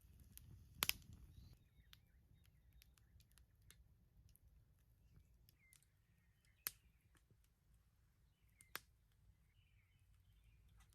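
Wood fire crackling: scattered faint pops and ticks, with three sharp snaps, about a second in, past the middle and near the end.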